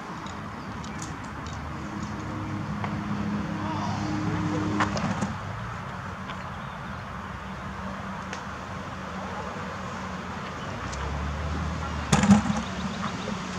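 A steady engine hum that swells over the first five seconds and then fades, with another low engine hum later on. A few sharp clicks, and a loud thump about twelve seconds in.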